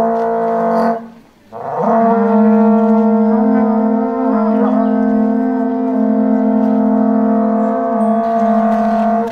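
Several horagai (conch-shell trumpets) blown together by yamabushi. A short blast breaks off about a second in, then one long, steady, foghorn-like blast follows, with slightly different pitches sounding at once.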